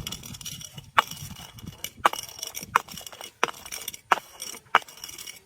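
Glass bottle being struck and broken: six sharp glass cracks about two-thirds of a second to a second apart, each with a brief bright ring, with a fine crackle of glass between them.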